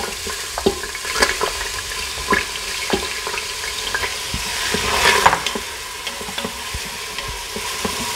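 Chopped red onion hitting hot avocado oil in an Instant Pot's stainless-steel inner pot on the sauté setting and sizzling, with a wooden spoon knocking and scraping as it pushes the onion out of a glass bowl. The sizzle swells about five seconds in, and the spoon starts stirring the onion in the pot near the end.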